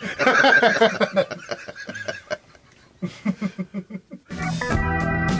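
People laughing: a long run of rapid laughter, a short pause, then a shorter chuckle. A little over four seconds in, guitar music starts and continues.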